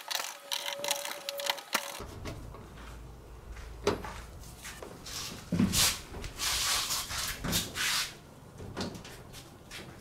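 Cordless electric screwdriver whirring in short runs as it drives screws into a washing machine's bottom panel. Then the washing machine is tipped back upright and set down, with several thumps and scraping, the loudest thump about halfway through.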